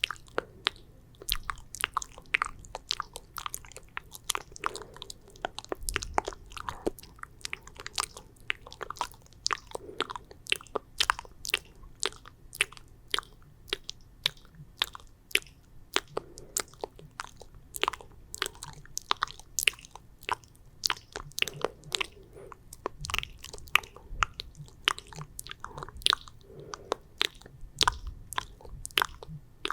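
ASMR mouth sounds: sticky, wet saliva clicks and smacks, a dense irregular string of sharp clicks, several a second.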